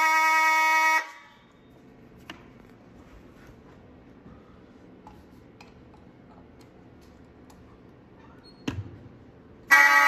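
Simplex fire alarm horn sounding a loud, steady buzzing tone that cuts off abruptly about a second in. Low room noise with a few small clicks and a short knock follows while a ceiling smoke detector is tested with a pole-mounted tester. The horn comes back on abruptly near the end.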